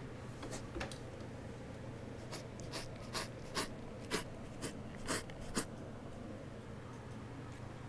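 A cat licking the top of a corrugated cardboard scratcher: its rough tongue rasps on the cardboard in a run of about eight short strokes, roughly two a second, starting about two seconds in.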